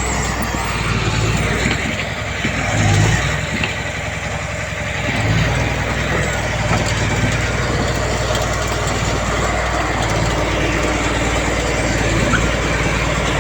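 Diesel engine of heavy earthmoving machinery running. Its low engine note drops away for a few seconds about two seconds in, then picks up again.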